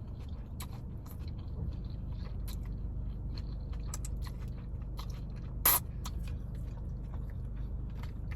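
Someone eating takeout vegetable lo mein: a utensil scraping and clicking in the container, and chewing. One sharper, louder click comes about two-thirds of the way through.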